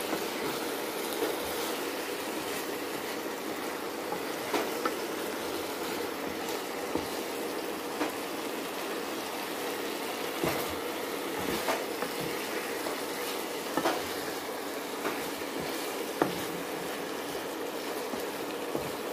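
Eggplant curry sizzling in a frying pan as it is stirred, with occasional sharp clicks of the spatula against the pan.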